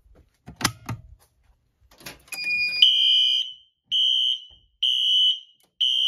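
A couple of sharp clacks, then newly installed Wheelock Exceder fire alarm horn strobes start sounding as the system is tested. The horn gives a high-pitched blast of about half a second, repeating roughly once a second.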